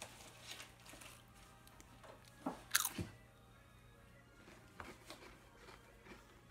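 Pringles potato chip being bitten and crunched: a few sharp crunches about two and a half to three seconds in, then quieter chewing, with faint music underneath.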